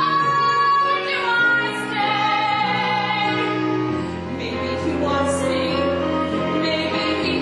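A woman singing in a theatrical, operatic style over instrumental accompaniment, holding long sustained notes.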